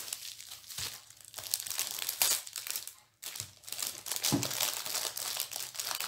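Plastic packaging crinkling and rustling as it is handled and opened, with a short pause about three seconds in.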